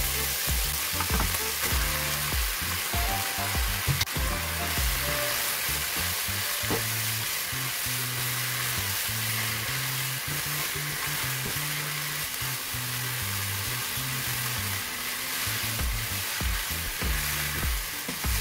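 Seafood, mushrooms and bamboo shoots sizzling in hot oil in a nonstick wok, stirred and turned with a spatula. A sharp tap about four seconds in.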